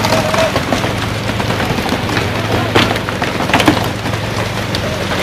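Water spraying and splashing with irregular sharp knocks on the wooden deck of a pole-and-line tuna fishing dhoni, the two loudest about three and three and a half seconds in, over the steady low hum of the boat's engine.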